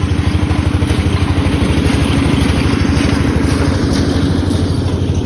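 Small engine of a museum toy ride train running steadily, with a fast, even pulse and a held hum.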